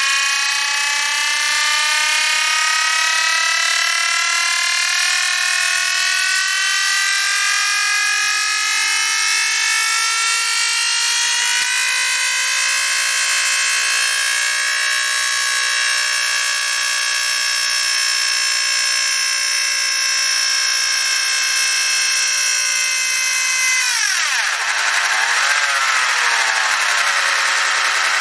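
VCR rewinding a physically damaged VHS tape, giving a very loud, many-toned whine. The pitch rises slowly at first, then holds steady, and near the end drops and wavers.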